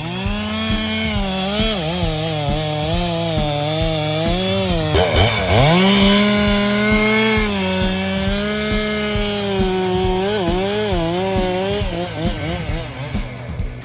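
Chainsaw running at high revs while cutting wood, its pitch sagging and recovering under load. About five seconds in the revs drop sharply and climb straight back up.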